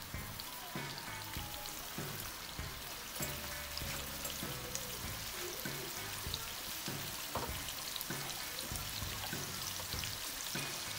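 Marinated pork cubes and spring onions frying in oil in a nonstick pan: a steady sizzle with scattered small pops.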